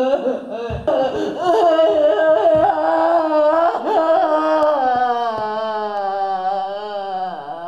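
A woman's wordless vocalising: short wavering cries, then one long held note that sags and falls near the end. A few low thumps can be heard under the voice.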